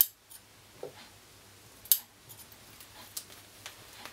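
Scissors snipping thread at a sewing machine: a few scattered sharp snips and clicks, the loudest right at the start and another about two seconds in.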